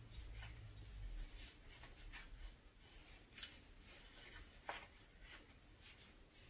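Faint rubbing and rustling of a microfiber cloth wiping a pistol slide, with a small sharp click a little under five seconds in.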